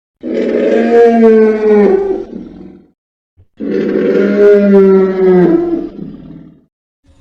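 Creature roar sound effect for a fictional monster: two long, pitched roars, each about three seconds, sagging in pitch as they end.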